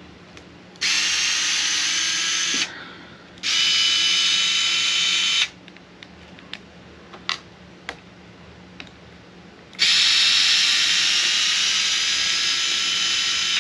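Skil cordless drill running in three bursts: about two seconds, a pause, about two seconds more, then a longer run of nearly four seconds near the end. It is a steady high motor whine, with a few light clicks in the pause.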